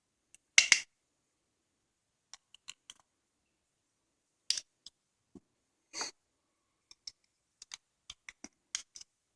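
Small steel parts of a coaster-brake bicycle hub clicking and clinking as they are handled and fitted together by hand, the brake shoes and their retaining spring. Scattered sharp clicks, loudest a double click about half a second in, with a quicker run of clicks near the end.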